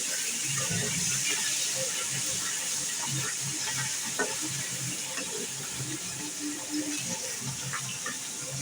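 Pieces of kalibaush fish frying in hot oil in a pan, a steady sizzling hiss with small crackles and a sharp click right at the start.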